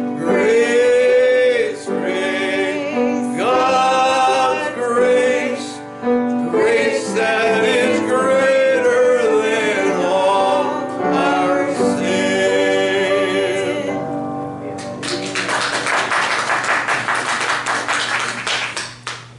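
A man and a woman singing a gospel hymn together as a duet, in sung phrases with long held notes. The song ends about fourteen seconds in and is followed by about four seconds of applause.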